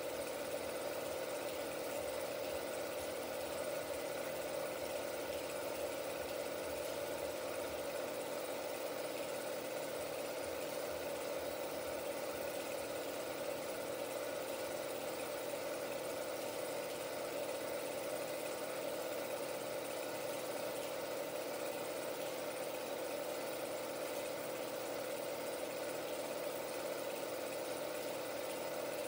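A 16mm film projector running with a steady mechanical whir, unchanging throughout.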